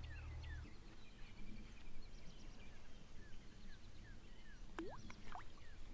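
Faint outdoor ambience with birds calling: a steady run of short, falling chirps and two rising whistles near the end. A low hum fades out under a second in.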